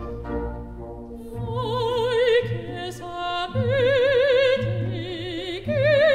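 Background music: an operatic-style voice holding long notes with wide vibrato, coming in about a second and a half in, over low sustained accompaniment.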